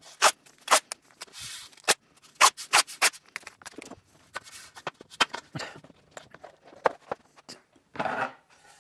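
Tape being pulled off the roll and pressed along a length of aluminium profile: a run of sharp clicks and taps with three short tearing sounds.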